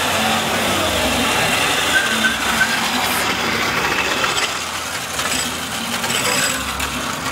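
Small engine of a motorized tricycle running as it passes close by.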